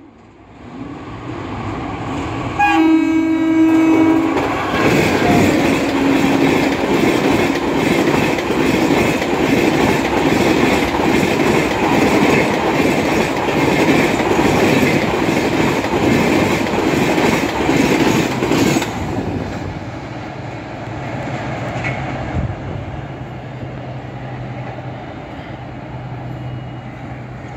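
The 12123 Deccan Queen express running through a station at speed without stopping. The horn sounds once for about a second and a half, about three seconds in. The coaches then rush past with the clatter of wheels over the rails for some fifteen seconds, and the noise drops away as the train moves off.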